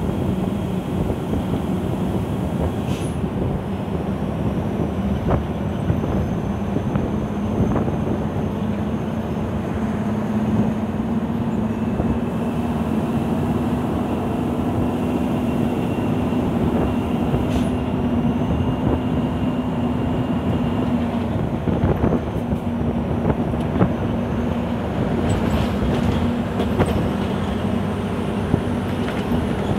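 Scania 164L 580's V8 diesel engine heard from inside the cab as the truck drives: a steady drone that rises slightly in pitch and drops back about two-thirds of the way through, with scattered knocks and rattles.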